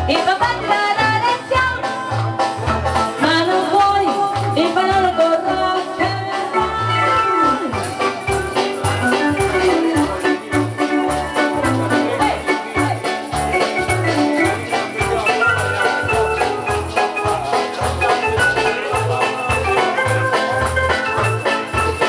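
Upbeat dance music with a steady bass beat and an electronic keyboard melody.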